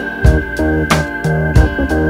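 Instrumental background music with a steady beat, about three beats in these two seconds, over a held high tone.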